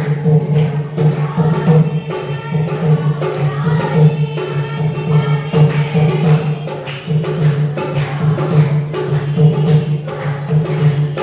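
Devotional song: singing over a steady held drone, with regular jingling percussion keeping the beat.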